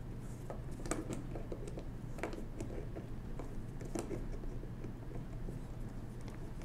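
A screwdriver turning a small bushing screw out of the metal frame of a 1920s Monroe model K mechanical calculator: scattered small clicks and scrapes, with sharper ticks about one, two and four seconds in.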